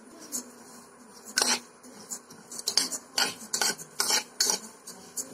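A spoon stirring dry vermicelli as it roasts in a metal pot, scraping and clinking against the pot's sides and bottom. The clinks come at irregular intervals, about ten in all.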